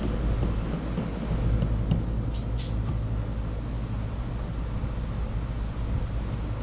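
Engine running steadily at a constant low hum, with a couple of light clicks about two and a half seconds in.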